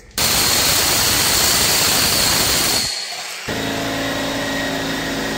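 Loud machine noise: a dense rushing noise that cuts out almost three seconds in, then a steadier, quieter motor hum with a held whine.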